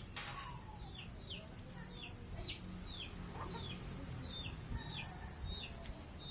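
A bird calling over and over with a short, high, falling note, about two calls a second, over a faint low background rumble.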